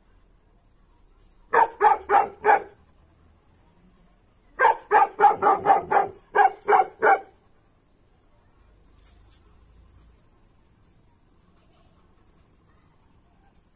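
A muzzled Tibetan mastiff barking in quick volleys: about four rapid barks, then a longer run of about ten, before it stops.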